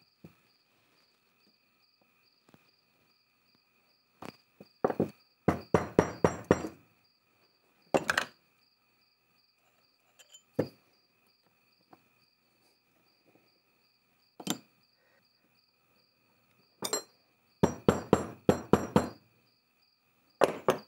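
Small plastic and metal parts of an electric auxiliary coolant pump being handled and fitted together on a workbench: scattered clicks, knocks and clinks, some in quick clusters, over a faint steady high-pitched whine.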